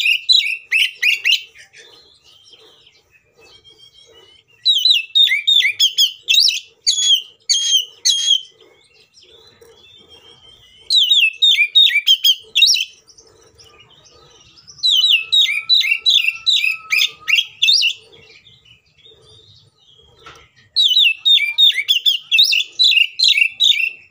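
Oriental magpie-robin (kacer) singing loud, clear song in bursts of rapid, sharp repeated notes, about five phrases of two to four seconds each with short pauses between. This is the persistent, combative song that bird keepers use as a bait recording to provoke other magpie-robins into singing.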